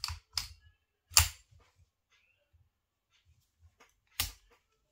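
Metallic clicks and clacks of an unloaded Ithaca 1911 .45 pistol as its slide is worked by hand. There are a few quick clicks at the start, a sharp clack about a second in, which is the loudest, and another clack near the end.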